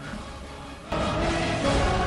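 Background music: quiet at first, then coming in loudly and abruptly a little under a second in.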